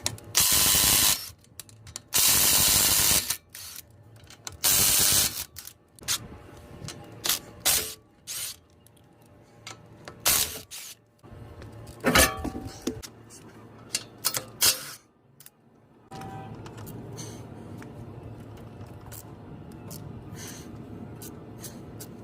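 Car suspension repair work: three loud hissing bursts of about a second each, then scattered clicks and knocks of hand tools, and from about two-thirds of the way in a steady low hum with faint ticks.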